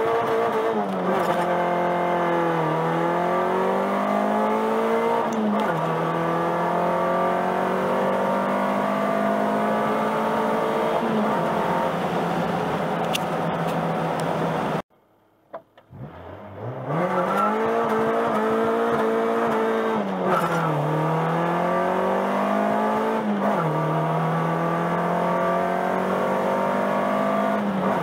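High-compression non-VTEC Honda B20 four-cylinder with ramhorn headers and an HKS Hi-Power exhaust, heard from inside the cabin during hard acceleration pulls. The engine note climbs with the revs and drops sharply at an upshift, once in each of two pulls, with a brief dropout about halfway through.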